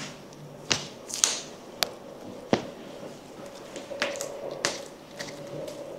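A series of about six sharp pops and clicks over some four seconds, heard during a chiropractic adjustment: joints cracking as the spine and neck are manipulated.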